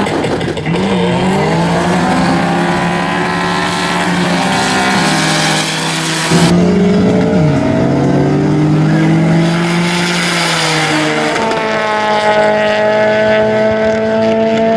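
Drag-race cars' engines accelerating hard, the pitch climbing in rising sweeps. About six seconds in the sound changes abruptly, climbs again, and in the last few seconds settles into a steady high engine note.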